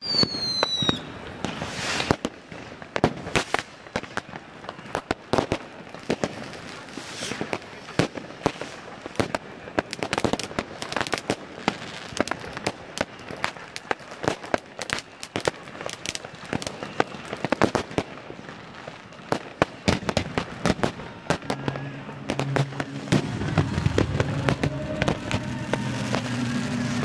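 New Year's fireworks: a steady stream of sharp firework bangs and crackles from rockets and shells, one after another, with a whistle that falls in pitch at the very start.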